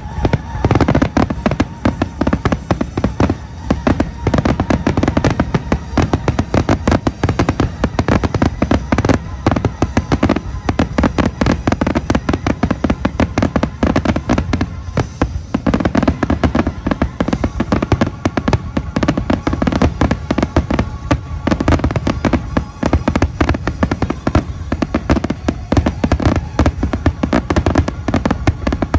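Dense barrage of consumer fireworks and firecrackers: many rapid, overlapping bangs and pops going off continuously.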